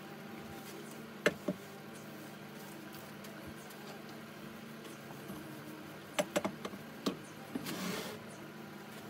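Hand brush sweeping wood shavings off a metal wood-lathe bed: a few sharp knocks of the brush against the metal about a second in and again around six to seven seconds in, then a short brushing swish near the end, over a steady machine hum.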